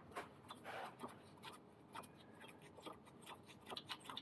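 Faint, irregular clicks and scrapes of a socket wrench being worked on an aircraft engine's spark plug, metal tool against the plug and cylinder.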